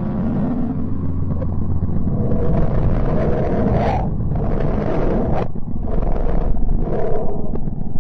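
Eerie space-sound audio presented as the sound of the planet Mercury: a dense, low rumbling drone with steady hum tones underneath. A brighter hiss swells in and cuts off abruptly about four times in the second half.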